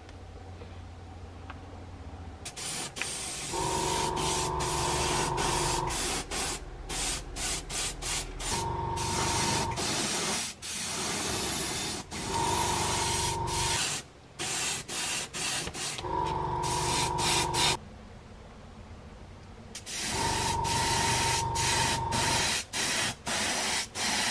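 Airbrush spraying paint in long and short passes: a loud airy hiss that starts and stops many times as the trigger is worked, with a steady whistling tone during the longer passes.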